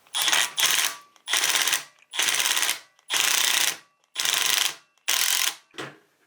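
Ratchet wrench with a 5 mm hex bit turning the screw of a valve spring compressor tool on a 4G63 cylinder head: about seven quick ratcheting strokes, each a rapid run of clicks lasting about half a second, roughly one a second.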